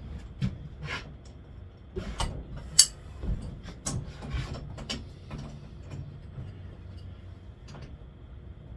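Scattered metal clicks and clanks of a wrench working on a bicycle's steering headset, snugging up loose steering, with one sharp click a little under three seconds in.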